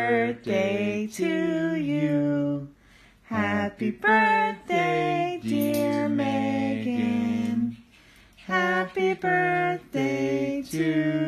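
A slow song with a woman singing, in long held phrases broken by short pauses.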